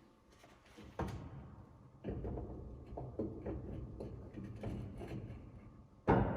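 Metal car parts being handled and fitted: a sharp knock about a second in, then a low rumbling scrape with scattered clunks and clicks, and a louder clunk near the end.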